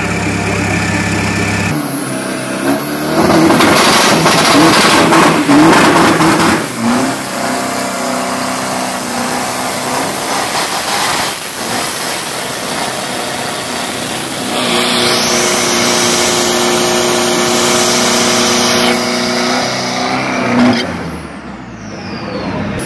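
Drag pickup truck's burnout: the engine is held at high revs while the rear Nitto radial tyres spin on the track, in two long loud stretches with the engine running steadily between them. It starts from idle, and the truck pulls away near the end.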